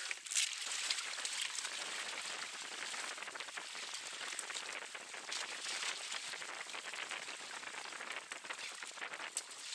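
Sea water hissing and splashing along the hull of a sailing kayak under way in choppy water: a steady fizzing hiss dotted with many small crackles, with no wind rumble.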